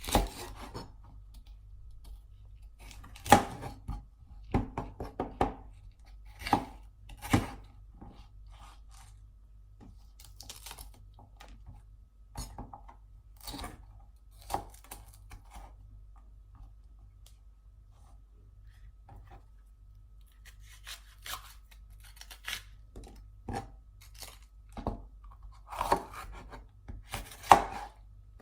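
Knife cutting bell peppers into large pieces: irregular crisp slicing strokes and knocks of the blade, a few much louder than the rest.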